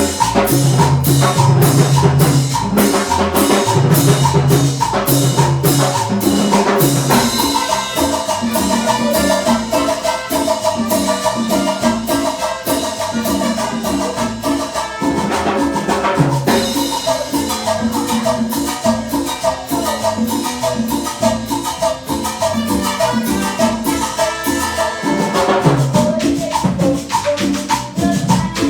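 Live cumbia band playing a song: a steady beat with bass, percussion and a repeating melodic line.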